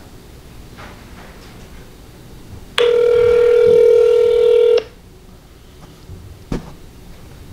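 Telephone ringback tone playing from a phone's speaker: one steady two-second ring about three seconds in, part of the repeating two-seconds-on, four-seconds-off ring of a call still waiting to be answered. A short knock near the end.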